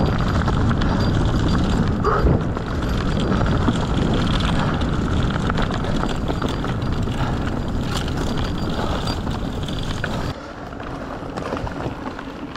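Wind buffeting the action camera's microphone over the rumble of an Orbea Occam mountain bike's tyres rolling along the trail at speed. The rush drops off abruptly about ten seconds in.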